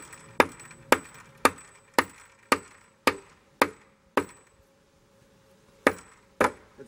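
A short block of 2x4 lumber used in place of a hammer, knocking a bolt into a wooden post. Sharp knocks come about two a second, eight in a row, then a pause and two more near the end.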